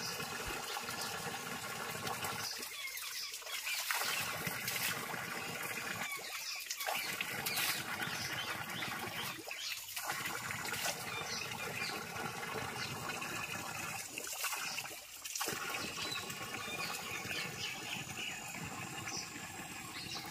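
Spring water pouring from a pipe and splashing onto stones and hands as a man washes his face, a steady rush with brief lulls a few times. Birds chirp faintly over it.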